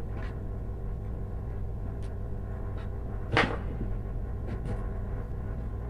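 Faint clicks and rustles of electrical wires being handled and joined at a plastic junction box, over a steady low hum. One brief louder sound comes about three and a half seconds in.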